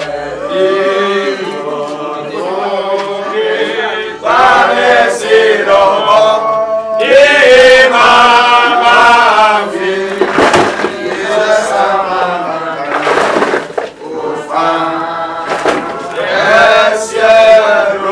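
A group of voices singing a hymn together, unaccompanied. In the middle come a couple of sharp thuds or scrapes as shovelfuls of earth are cast into the grave.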